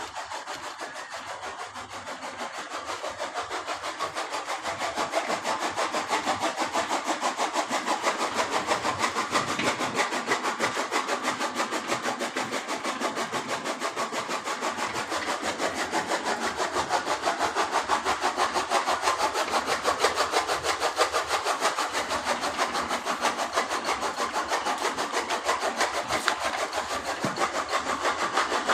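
A fast, even rhythm of rasping strokes that grows louder over the first several seconds and then holds steady.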